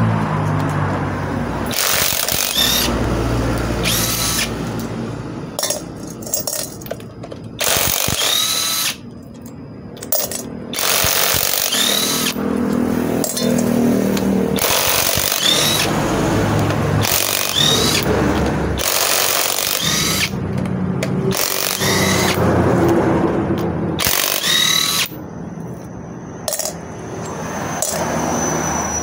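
Cordless brushless impact wrench hammering on the bolts of a truck differential carrier, in a string of bursts a few seconds long, several opening with a short rising motor whine, with short pauses between them as the socket is moved from bolt to bolt.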